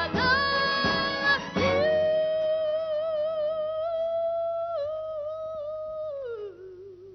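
Music: a woman's singing voice holds one long wordless note over plucked guitar chords. Near the end it slides down to a lower note with vibrato and fades out.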